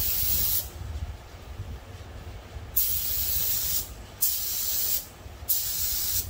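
Gravity-feed spray gun spraying urethane automotive paint in short bursts of hissing air, each under a second: one ending about half a second in, then three more close together from about three seconds in. A low steady rumble runs underneath.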